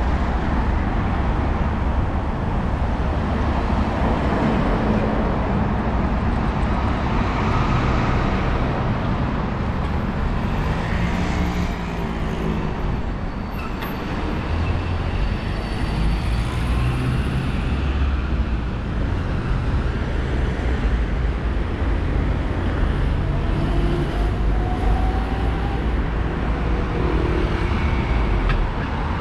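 Steady road traffic on a city street: a continuous rumble of passing motor vehicles, engines and tyres.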